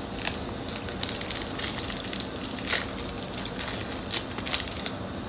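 Irregular crisp crunches and crackles of a speculoos windmill cookie being crunched, with the loudest crunch a little under three seconds in.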